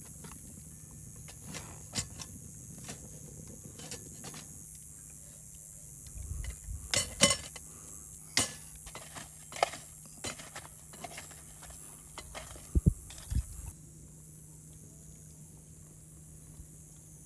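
Irregular sharp clicks and knocks, a quick cluster around the middle and two louder knocks a little later, over a steady high hiss.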